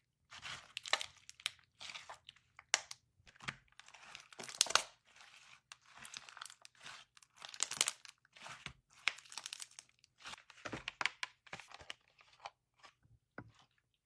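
Hands working crinkly, crunchy material close to the microphone: irregular bursts of crinkling, tearing and crunching, with sharp snaps mixed in.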